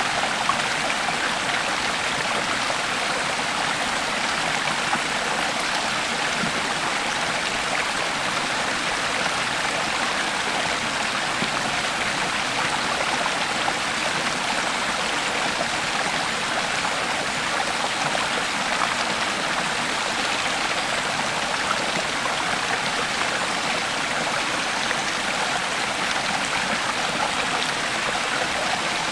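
Creek water flowing and splashing in a steady, even rush.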